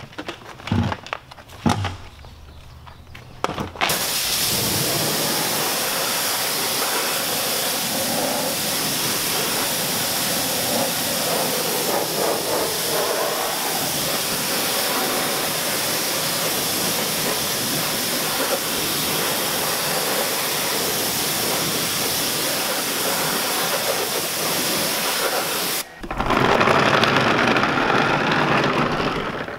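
Pressure washer spray hissing steadily as it rinses foam off a car wheel and tyre, starting about four seconds in after a few light knocks. It breaks off suddenly near the end and gives way to a louder rush of water.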